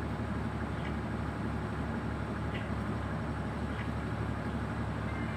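Steady low drone of a ship's engine running continuously aboard the anchored barge.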